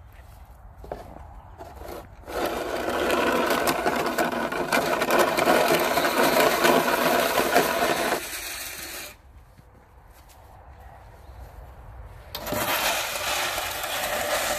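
Plastic snow shovel scraping along an asphalt driveway as it pushes a load of snow, a long continuous scrape of about six seconds starting about two seconds in. After a short lull, a second scrape starts near the end.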